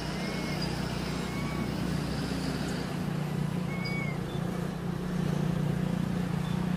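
Short, arched, squeaky calls of a young macaque, one every one to three seconds, over a steady low hum that gets a little louder about five seconds in.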